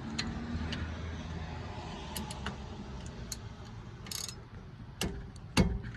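A ratchet wrench tightening a brake caliper bolt: scattered, irregular metallic clicks and taps over a steady hiss of rain, with a heavier knock near the end.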